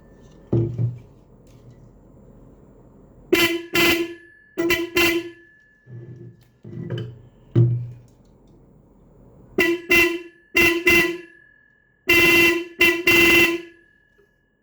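Electric car/bike horn test-sounded in short blasts, mostly in pairs, with two longer blasts near the end.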